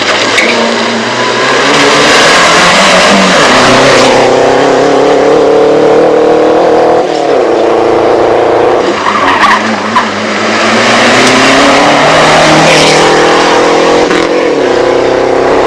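Rally car engines at full throttle, passing in turn, revving high. The pitch climbs and then drops sharply at each gear change.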